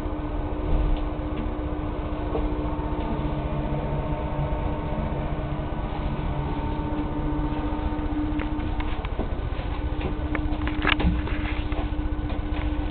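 Steady hum and hiss with a faint constant tone, and a quick cluster of clicks about eleven seconds in as a door is handled and opened.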